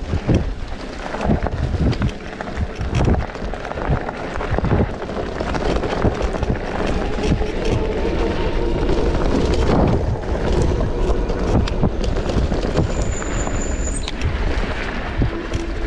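Off-road vehicle engine running while riding a trail, mostly buried under heavy wind buffeting on the microphone.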